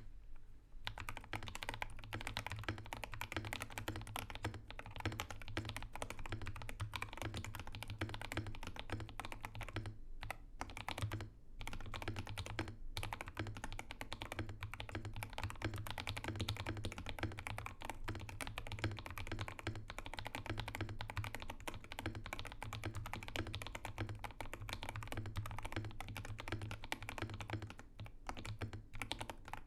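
Fast, continuous typing on a DK87 (Customize 87) tenkeyless mechanical keyboard with lubed Akko Ocean Blue switches and cherry-profile keycaps. The case foam, PE foam and tape mod give it a deep, thocky key sound. There are a couple of brief pauses about ten seconds in.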